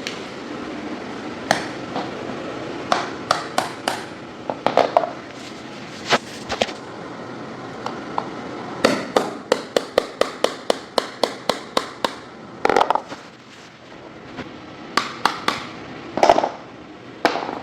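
Hammer striking a chisel to break out a laminate floor plank: scattered single blows, then a quick even run of about a dozen strikes, three or four a second, then a few more single blows.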